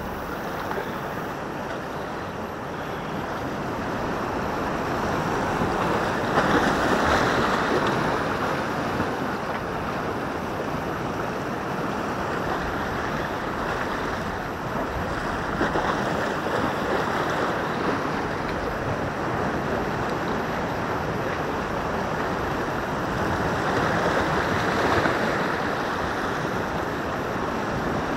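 Sea waves washing against a rocky shore: a steady rush of surf that swells louder twice, about a quarter of the way in and again near the end.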